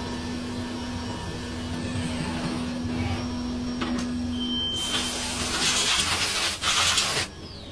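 CNC milling machine running with a steady hum while machining a brass part; the hum stops about four and a half seconds in, and a loud hiss follows for about two and a half seconds.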